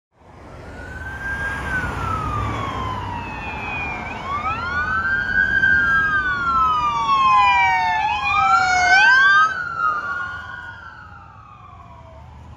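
Emergency-vehicle sirens on a fire ladder truck and police cars, in a slow rising and falling wail. One siren at first, with a low diesel engine rumble underneath; a second wail joins about four seconds in and overlaps it, loudest in the middle, then fades as the vehicles move off.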